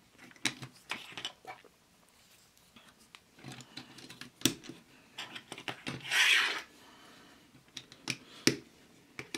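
LEGO plastic bricks clicking and rattling as a small LEGO race car's roof is lifted off and pressed back on: scattered sharp clicks, the loudest about four and a half and eight and a half seconds in, with a short hiss about six seconds in.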